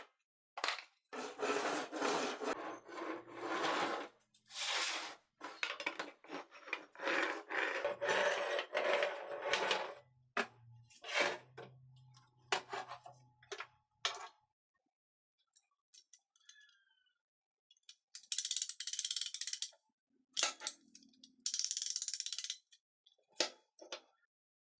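Steel parts being handled on a workbench: repeated metal clattering, rubbing and scraping. Near the end come two short hissing scrapes a few seconds apart, then a few light clicks.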